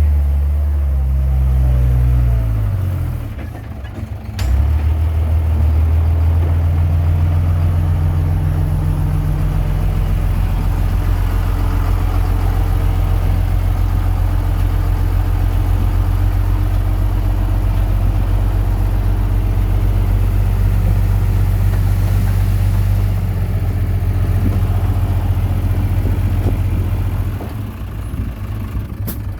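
Komatsu D21P bulldozer's diesel engine working. Its pitch falls over the first few seconds and dips briefly around four seconds in. It then runs steady and strong for most of the time and eases down near the end.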